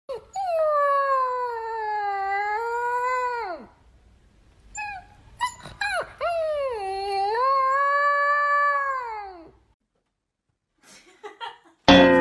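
A pet howling: two long, drawn-out howls with a wavering pitch that sags and drops off at the end of each, with a few short yips between them. A loud falling-pitched sound cuts in at the very end.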